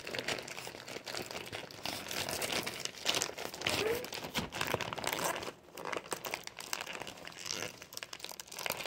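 Plastic poly mailer bag crinkling and rustling as it is handled and pulled open.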